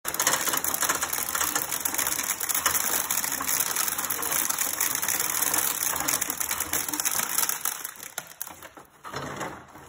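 Hand-cranked cast-iron corn sheller stripping the kernels off an ear of dried corn: a fast, steady clicking rattle while the crank turns, dying away about eight seconds in.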